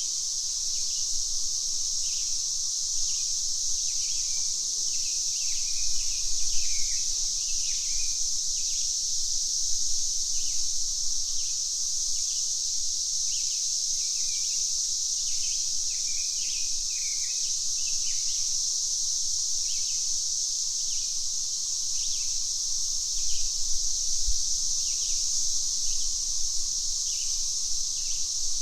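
Cicadas droning steadily at a high pitch, with short bird chirps repeating over them every second or so.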